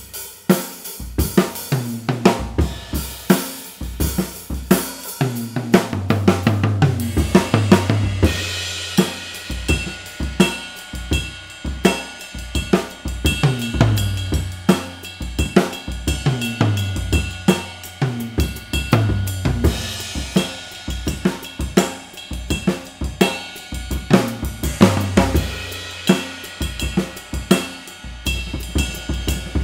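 An ultra-portable tiny drum kit played in a driving pop/rock groove: kick drum, snare and hi-hat, with crash cymbals struck and their wash sustaining from about eight seconds in. The low drums ring in recurring low tones. It is heard as captured by three room microphones with no EQ.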